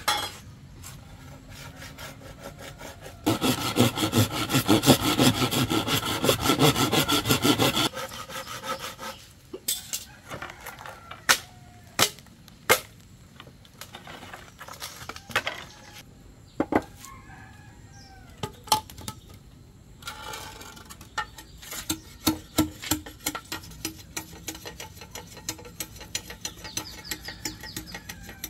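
A hand saw cuts through a green bamboo pole for about five seconds, starting some three seconds in. After that come a series of separate sharp knocks and chops on bamboo.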